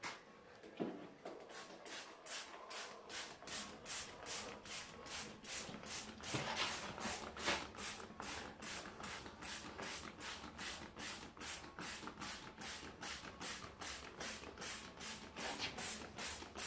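Hand trigger spray bottle of soapy water, pumped over and over in quick short sprays, about three a second, starting a second or two in.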